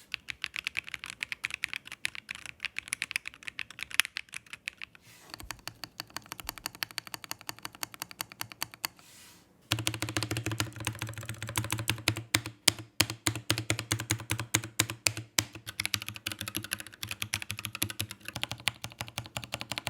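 Fast typing on mechanical keyboards as a sound test: a stream of rapid keystrokes. About nine and a half seconds in it cuts to a second passage of typing that sounds deeper, one keyboard then the other. One of them is a Tofu60 60% keyboard with Tangerine linear switches.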